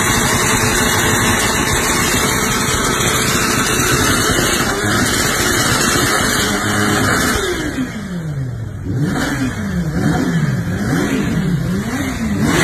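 Sport motorcycle engine revved hard, its exhaust spitting flames. It is held near the top of the revs at first, then drops away about 7.5 seconds in and is blipped up and down four times in quick succession.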